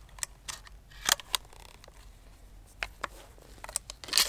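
Shotgun shells being pushed one at a time into a shotgun's tube magazine: a series of sharp clicks, coming in pairs about a second in, just before three seconds and near the end.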